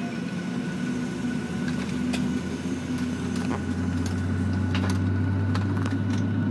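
Cabin noise inside a Boeing 737-800 during pushback: a steady mechanical hum, with a low drone that grows louder about halfway through and a few faint clicks.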